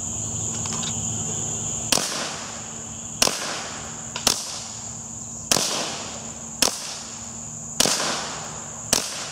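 Suppressed Ruger 10/22 firing subsonic .22 Long Rifle rounds: seven shots about a second apart, each a sharp crack with a short echo trailing off. A steady high insect chirr runs underneath.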